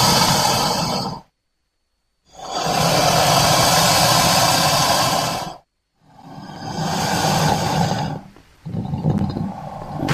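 Designed creature roars for Eryops, a prehistoric amphibian, layered from crocodilian and wild boar recordings. A roar ends about a second in. After a second of silence comes a long roar of about three seconds. After another brief gap, a shorter roar dips and carries on more quietly near the end.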